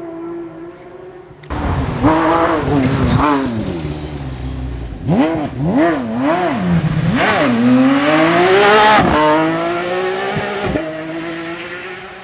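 Rally car engine at full stage pace: it comes in loud about 1.5 s in, the revs rise and drop sharply several times through gear changes and lifts, then climb in one long pull before the car draws away and the sound fades.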